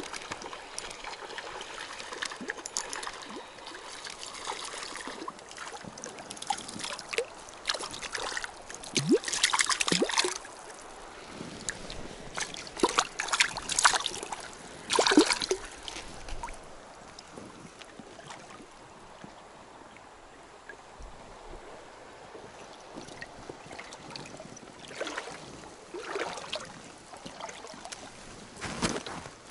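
Water splashing in bursts in a shallow river as a small hooked fish is brought to hand at the angler's feet, loudest in the middle. Between the splashes the river runs with a steady trickle.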